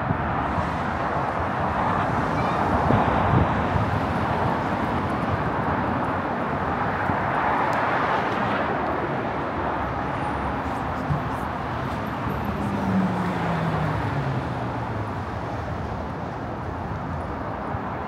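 City street traffic: a steady wash of cars and tyres passing on the road, with one vehicle's engine note falling in pitch as it goes by about two-thirds of the way in.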